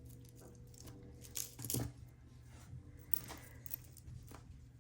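Fine metal jewelry chains and beads clinking lightly as tangled necklaces are picked at and pulled apart. A handful of scattered small clinks, the loudest about one and a half seconds in.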